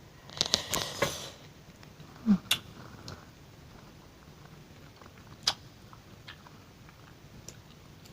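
Close-miked wet mouth sounds of chewing strawberries with yogurt: a short burst of squelchy chewing noise about half a second in, then scattered single lip and tongue clicks. A brief hummed 'mm' comes a little after two seconds.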